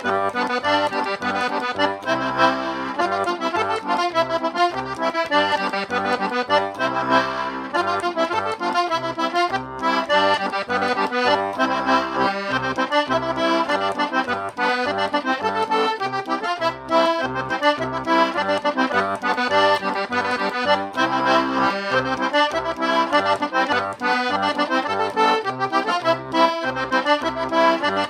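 Hohner button accordion playing a tune without pause, a melody over a regular pulse of bass notes.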